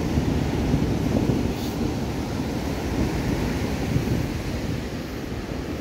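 Ocean surf breaking and washing up a sandy shore, mixed with wind buffeting the microphone as a steady low rumble.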